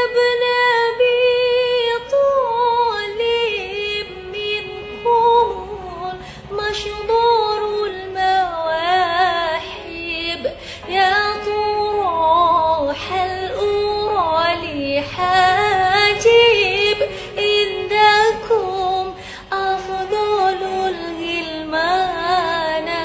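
Singing: a single high voice carrying a melody that bends up and down in pitch.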